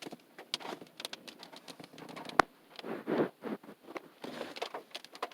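Big raindrops pattering irregularly on the car's roof and windshield, heard from inside the car, with one sharper tap a little before the middle.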